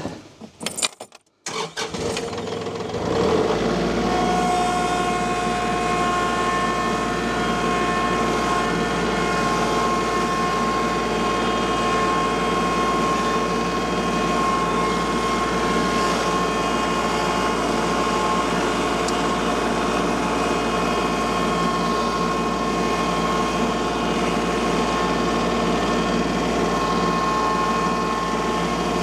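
A gasoline engine starts about two to three seconds in, then runs steadily at a constant speed.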